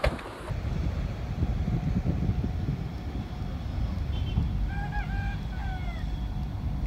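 A rooster crows once about four seconds in, its call broken into short notes with the last one falling away. A steady low rumble of wind on the microphone runs under it.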